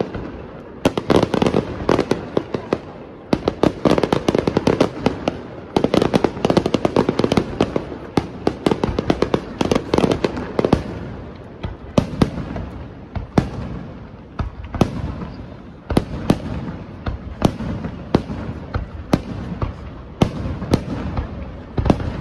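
Aerial firework shells bursting: dense volleys of rapid bangs over the first half, then more spaced, separate reports about a second apart.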